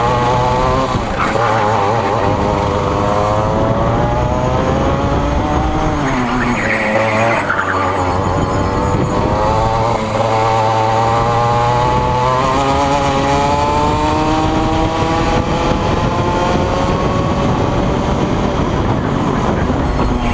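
Rotax Max kart's 125 cc two-stroke engine heard onboard at racing speed, its pitch climbing steadily under full throttle. The pitch drops sharply for a corner about six seconds in, then rises again in one long pull, falling off once more near the end.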